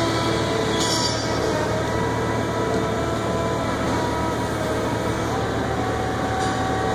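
Battery-powered Sherpa mini loader running steadily as its forks lift a sawn concrete floor slab: a whine of several pitches that drift slightly, over a constant rumble.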